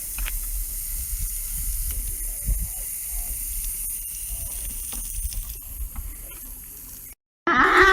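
Steady hissing noise with a low rumble underneath, which cuts off abruptly near the end. Just after, a cow starts mooing.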